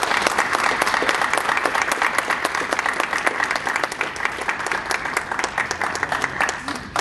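Audience applauding: many hands clapping densely and irregularly, thinning a little near the end.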